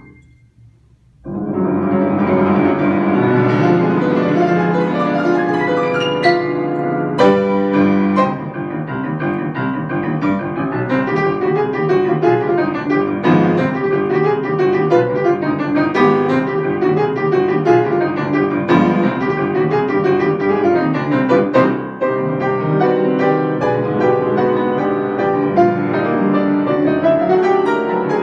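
Grand piano played solo as a spooky Halloween-style improvisation: after a short silence at the start, dense chords and runs come in about a second in and carry on without a break, with several hard-struck accents.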